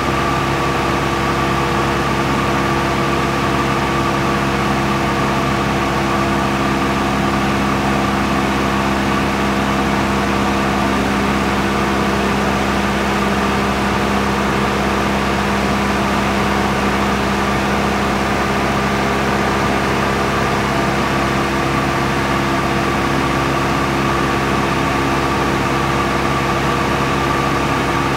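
Engine running at a constant speed: a steady drone with several held tones and no change in pitch or loudness.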